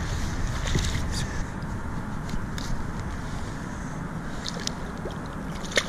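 Steady wind and water noise around a kayak, with scattered light ticks and one sharp click near the end.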